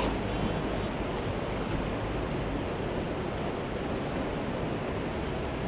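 Steady rushing of tsunami floodwater surging inland.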